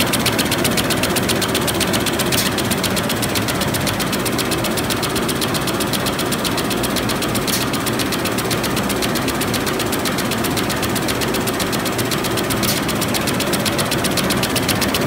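Six-line facial tissue folding machine with two embossing sets running at speed: a steady machine hum with a rapid, even clatter from the folding and embossing rolls. A sharper click comes about every five seconds.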